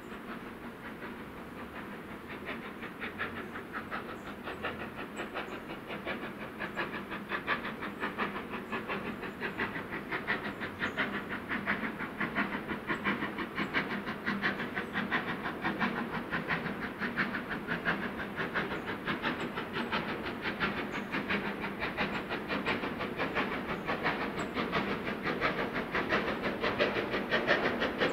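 LMS Black 5 steam locomotive hauling a passenger train, its exhaust beating in a fast, even rhythm with steam hiss, growing steadily louder as it approaches. The loco is working hard up the steep 1-in-49 climb.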